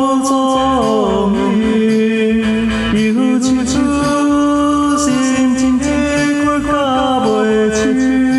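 A man singing a Taiwanese Hokkien ballad over a karaoke backing track, holding notes and sliding between them.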